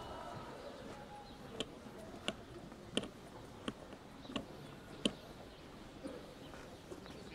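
Footsteps of hard-soled shoes clicking at a walking pace, about one step every 0.7 seconds, for six steps from about a second and a half in, over a low steady city hum.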